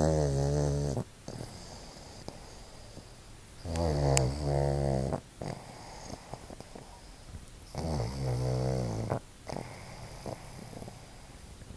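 A sleeping pug snoring, with three long snores about four seconds apart, each lasting about a second and with a clear pitch to it, and quieter breathing between them.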